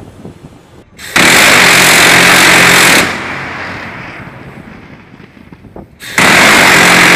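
Phalanx CIWS 20 mm six-barrel Gatling gun firing two bursts of about two seconds each, the shots so fast that each burst is one steady, unbroken sound that stops abruptly. A fainter tail of earlier fire fades out in the first second.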